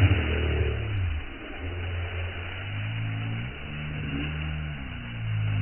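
An engine running, its pitch stepping up and down as the revs change.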